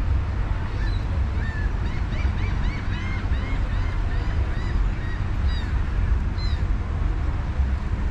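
A bird giving a quick run of short, arching calls, starting about a second in and stopping after about six and a half seconds, over a steady low rumble.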